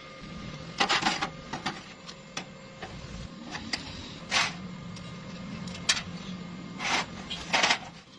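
Welding work on galvanised pipe: about ten short, irregular bursts of crackle and sharp clicks over a steady low hum, the longer bursts lasting up to a third of a second, as in tack welding.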